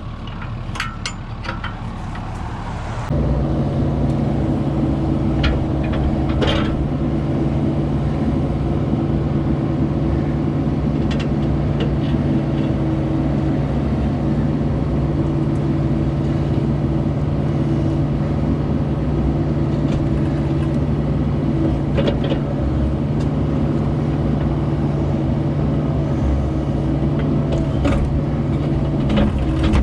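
Engine running a hydraulic system, worked by the push of a button. About three seconds in it comes up to a steady, higher speed and runs evenly, with a few light knocks.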